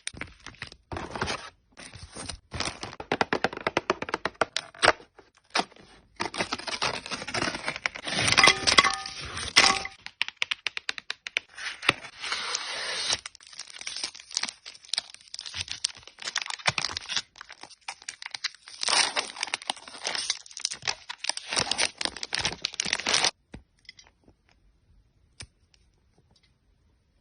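Dense, rapid crackling and crunching in bursts of one to a few seconds. It stops about 23 seconds in, leaving only a few faint clicks.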